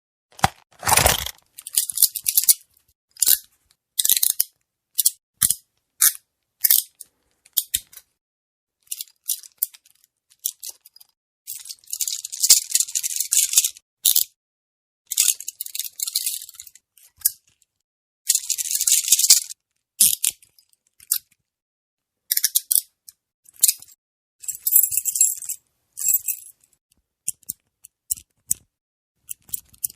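Metal handcuffs handled, their ratchets clicking and chain links rattling in a series of short, separate bursts with silent gaps between, several running on for a second or two. A heavier metallic knock comes about a second in.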